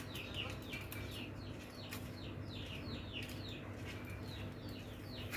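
A small bird chirping over and over, short high-pitched calls that fall in pitch, about two to three a second.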